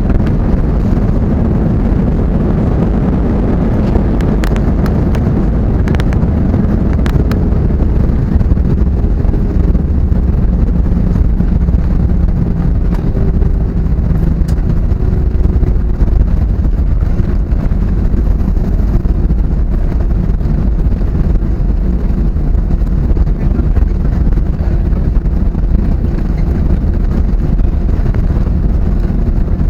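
Steady loud rumble of engine and airflow noise inside the cabin of an Airbus A320neo on its landing, with a few light clicks or rattles about four to seven seconds in.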